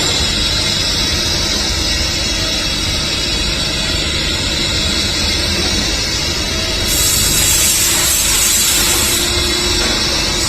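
CNC machine running with a steady mechanical noise, with a loud hiss, like a coolant or air spray, coming in about seven seconds in and fading after a couple of seconds.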